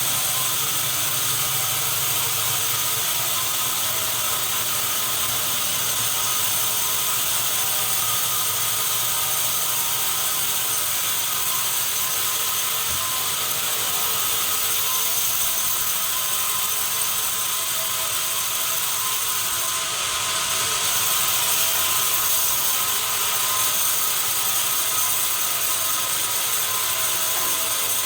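Sawmill machinery running steadily: a dense, even mechanical noise with a strong high hiss and steady whining tones.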